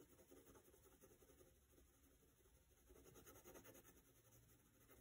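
Very faint scratching of a pencil on paper as lines are drawn, a little louder about three seconds in.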